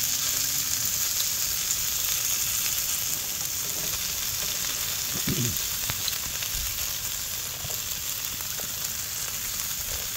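Korean beef intestines (gopchang and daechang) sizzling on a hot round griddle pan: a steady frying hiss with small crackles and pops. There is a brief low sound about halfway through.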